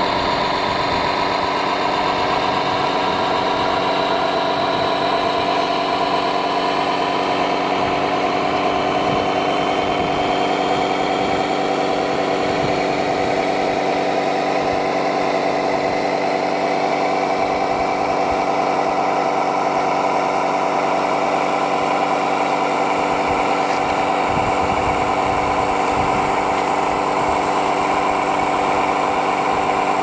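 Steady engine idling sound made of several held tones, one of them rising slowly over the first few seconds and then holding level.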